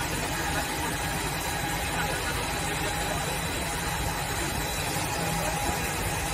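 PD1500 diamond wire saw running as its wire cuts through a block of white marble: a constant mechanical drone with a thin steady whine over it.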